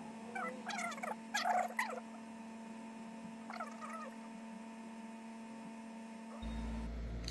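Short pitched animal calls, gliding up and down, in a few clusters over a steady electrical hum.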